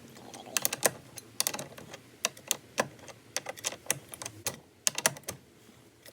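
Irregular sharp metal clicks and clinks as the J-hooks and hardware of a steering wheel puller are handled and hooked into a steering wheel.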